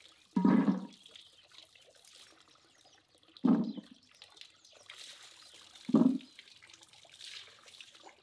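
Handfuls of wet cornelian cherries (dogwood berries) dropped into an empty enamel pot, landing three times as short thuds about three seconds apart, with faint water trickling and dripping in between.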